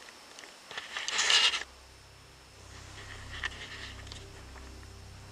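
A brief scratchy, scraping rustle about a second in, followed by a faint steady low hum.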